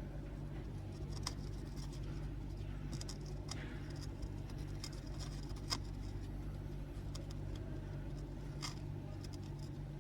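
Scattered light clicks and taps of small tools working on a laptop motherboard, over a steady low hum.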